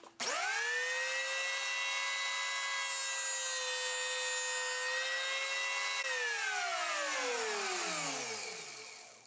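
Bosch electric hand planer, mounted upside down in a jointer jig, switched on: its motor and cutter head spin up quickly to a steady high whine and run unloaded for about six seconds. It is then switched off, and the whine falls in pitch as the cutter head coasts down to a stop.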